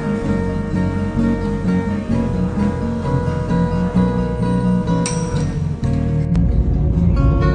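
Background music led by a strummed acoustic guitar, with a steady pattern of notes; the bass gets fuller about six seconds in.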